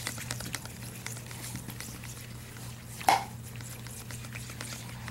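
A spoon stirring wet baby-cereal paint in a bowl: soft squishy scraping with small clicks against the bowl, and one sharper, louder knock about three seconds in.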